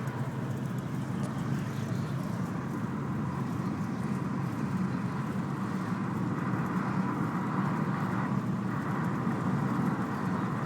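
Volkswagen Golf Mk5 rolling along with a steady rumble of road and running noise. This is the sound in which the owner hears a ticking from the front right wheel whose cause is unknown.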